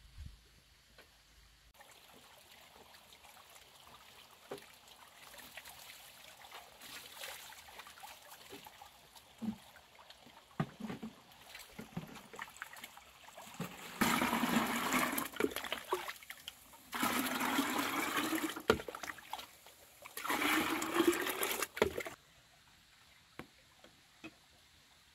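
Water pouring into a container three times in a row, each pour about two seconds long and rising in pitch as the container fills.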